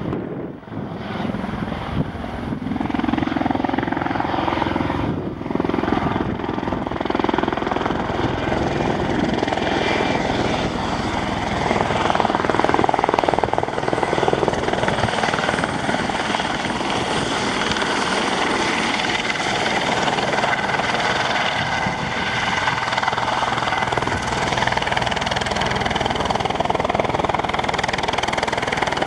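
Eurocopter EC130 helicopter flying and hovering close by: steady rotor and engine noise with a high whine running through it.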